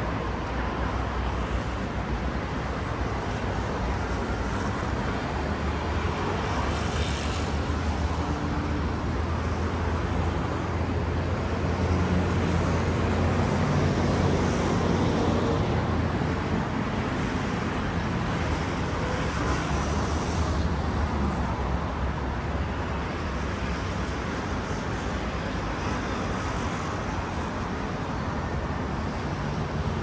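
Outdoor city ambience: a steady low rumble of road traffic, swelling louder through the middle as a passing engine comes closer and then fades.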